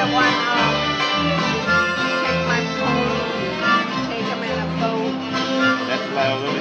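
Live bluegrass band playing an instrumental break: bowed fiddle over strummed acoustic guitars and pulsing bass notes, with harmonica.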